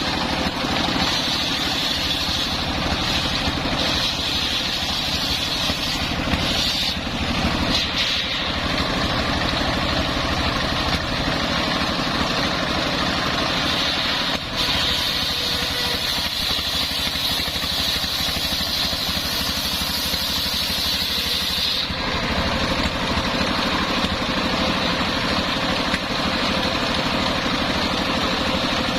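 Homemade engine-driven circular sawmill running steadily, its blade cutting through a coconut-palm trunk with a high whine and hiss that stops abruptly about three-quarters of the way through while the engine keeps running.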